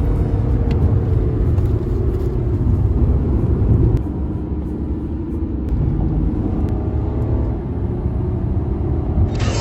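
A car running with a steady low rumble that drops a little in level about four seconds in.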